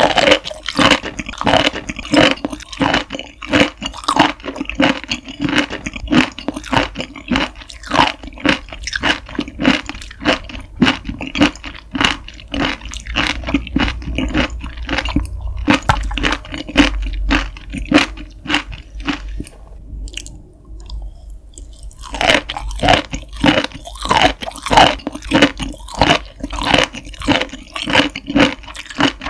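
Close-miked chewing of fresh beef spinal cord, soft and jelly-like, giving rapid wet clicks and smacks several times a second. The chewing thins out for a stretch in the middle and picks up again about three quarters of the way through.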